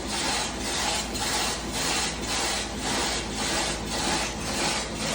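Brand-new LG washing machine making a harsh, rhythmic scraping noise, a rasping stroke a little under twice a second that repeats evenly as it runs: an abnormal fault noise from a new machine.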